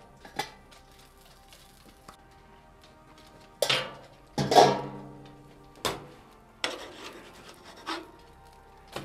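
Clatter and scrapes from working a flat-top griddle: a stainless steel basting dome lifted off and set down, then a metal spatula scraping under a grilled cheese sandwich, over background music. Two loud clanks come close together about halfway through, with a few lighter scrapes after.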